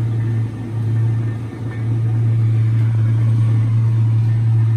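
A loud, steady low hum with a weaker rumble above it, dipping slightly twice early on.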